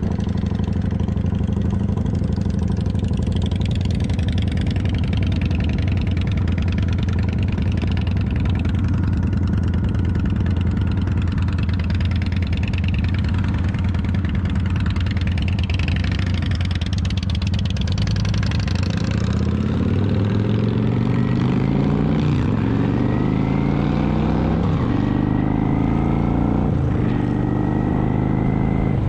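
Cruiser motorcycle engine running while riding, heard from the bike itself. It holds a steady speed for the first two-thirds. It then accelerates up through the gears, the pitch rising and dropping back at each of several shifts.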